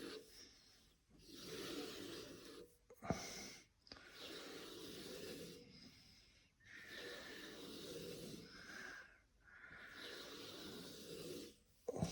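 Sharpening stone on a Tsprof Kadet guided sharpener drawn along a pocket-knife edge in slow, even strokes: about six long rasping passes with short pauses between them, and a single sharp click about three seconds in.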